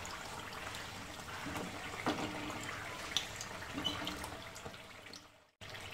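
Samosas deep-frying in hot oil: a steady sizzle, with a few clicks of a slotted spoon turning them in the pan. The sound cuts out briefly near the end.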